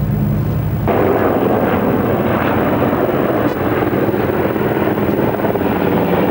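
Steady loud rushing noise on deck of a ship under way. A low hum drops away about a second in as the rush turns louder and brighter.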